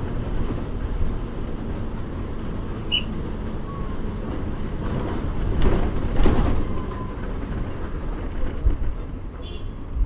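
Bus engine hum and road rumble heard from inside a moving bus, steady, with a brief louder swell of noise about six seconds in.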